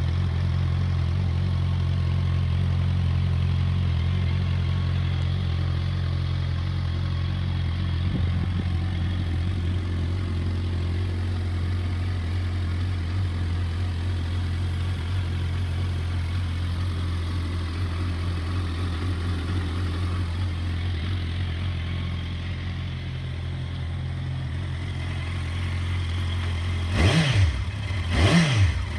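Suzuki GSX650F's inline-four engine idling steadily through a carbon-fibre end can. Near the end it is blipped twice, the revs rising and falling quickly each time.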